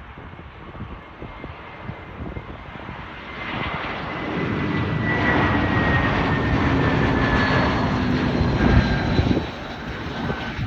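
Airbus A321 jet airliner passing close on its landing approach: the engine noise swells about three and a half seconds in, with a high whine slowly falling in pitch, then drops off about nine seconds in.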